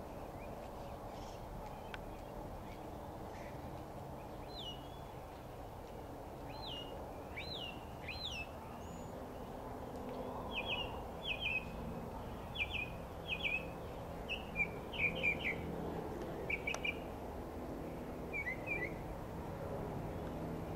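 Northern mockingbird singing. About four seconds in come short sliding whistled notes. From about halfway through it sings quick phrases, each repeated several times over, above a steady low background rumble.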